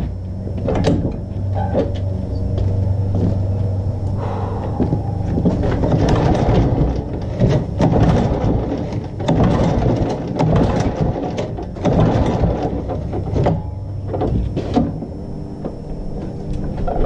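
A John Deere walk-behind lawn mower's small engine being pull-started: the recoil starter cord is yanked over and over, the engine turning over in short rattling bursts for several seconds without settling into a steady run. A few more brief bursts come near the end. The engine had been sitting unused for a long time.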